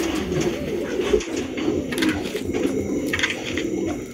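Domestic pigeons cooing continuously, several coos overlapping, with a few light clicks.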